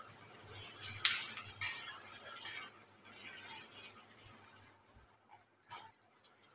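Sliced onion, carrot and cabbage sizzling in a wok while a spatula stirs and scrapes them against the pan, with a few sharp scrapes in the first half. The sizzle and stirring fade out in the last couple of seconds.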